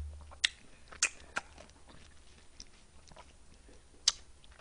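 A person eating watermelon fruit punch: about four sharp clicks, spread out, with faint chewing sounds between them.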